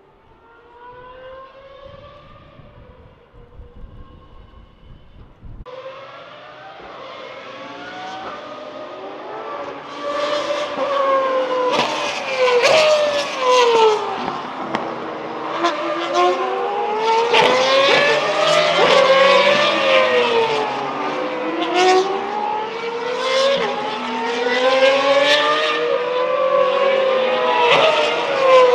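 Pagani Huayra R race cars' naturally aspirated V12 engines at high revs, pitch climbing through the gears and dropping sharply on downshifts, with more than one car heard at once. For the first few seconds only a faint distant engine is heard; about six seconds in the sound jumps to loud and close.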